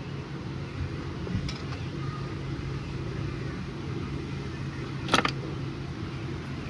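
Motorcycle engine idling steadily with a low, even hum. A single sharp metallic click sounds about five seconds in.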